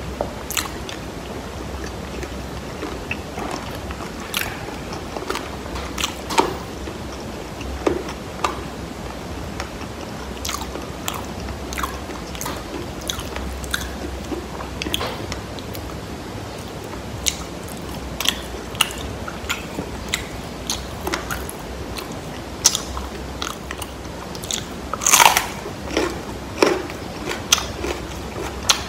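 Close-miked eating of fried chicken wings: bites and crunches into the fried skin between spells of chewing, with a cluster of louder crunching bites near the end.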